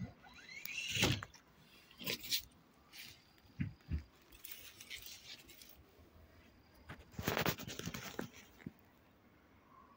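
Dry reeds and grass rustling and crackling in scattered bursts as they are pushed through and trodden on, with the longest burst about seven seconds in. A short rising squeal near the start.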